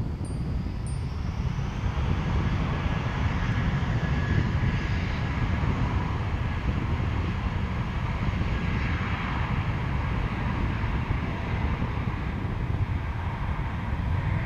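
Twin-engine jet airliner climbing away, its engines giving a steady, heavy rumble with a thin whine that rises slightly in the first two seconds.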